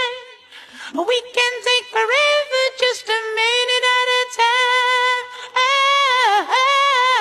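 Music: a high female vocal singing a melody of held notes with slides up and down, almost without accompaniment.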